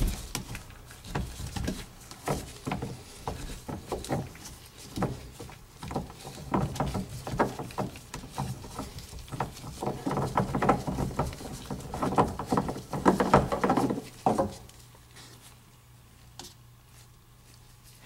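Gloved hands unscrewing a threaded PVC drain fitting from the outlet of a plastic AC condensate drain pan: irregular clicks and scrapes of plastic threads and handling. The handling stops about 14 seconds in.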